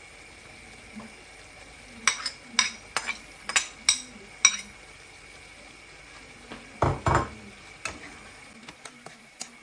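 A metal spoon clinks sharply against a ceramic bowl about six times as chopped red bell pepper is scraped and tapped off into a frying pan. This is followed by a duller knock and lighter clinks of the spoon stirring in the pan.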